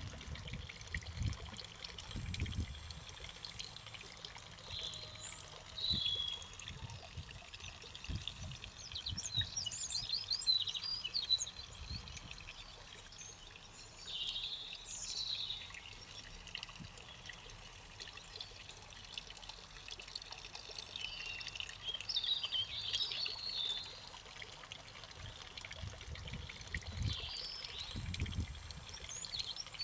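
Garden birds singing, with many short chirps, trills and whistles scattered all through, over a faint steady background hiss. Low rumbles come near the start and again near the end.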